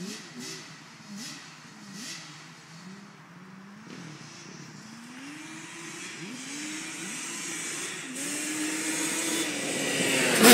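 Yamaha Banshee ATV's two-stroke twin engine at full throttle, climbing in pitch again and again as it shifts up through the gears. It grows louder as the quad approaches and is loudest as it passes close by at the end.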